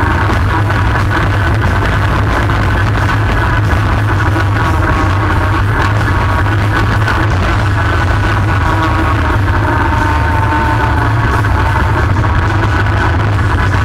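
ATV engine running steadily while riding: a constant low drone with wavering higher tones above it.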